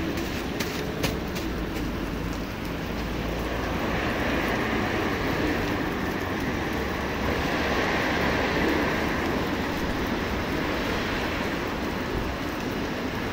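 Heavy rain pouring onto a paved parking lot in a severe thunderstorm: a dense, steady hiss that swells for a few seconds in the middle. A few sharp ticks of drops striking close by come in the first second.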